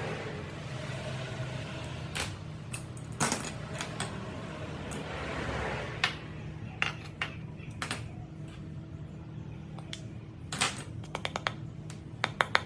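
Light metal clinks and taps from small metal parts being handled, irregular and coming in little clusters, over a steady low hum.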